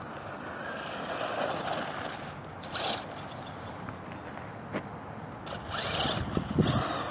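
Electric RC monster truck driving over packed snow, its motor running and its screw-studded tires scraping on the surface. The sound swells a little after a second in, has a short burst near the middle, and grows louder again near the end as the truck passes close.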